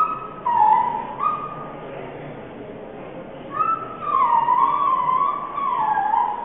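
A high, wavering tone that glides slowly up and down, dropping away for a couple of seconds in the middle and coming back louder about three and a half seconds in.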